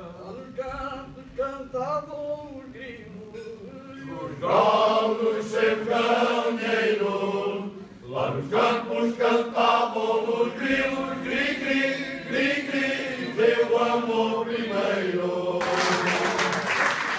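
Male Alentejo folk choir (cante alentejano) singing unaccompanied in slow, sustained lines. The singing is quieter for the first four seconds, then swells sharply as the whole group sings together. Applause breaks out near the end as the song finishes.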